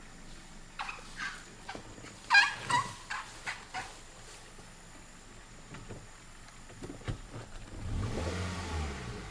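A few loud, high-pitched calls in short bursts, the loudest about two seconds in, then the car's engine revving as the vehicle pulls away near the end.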